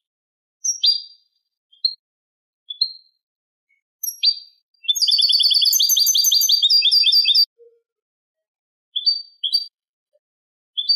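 European goldfinch song in the Málaga copla style: scattered short chirps, then a fast, rattling trill of about two and a half seconds in the middle, then more short chirps.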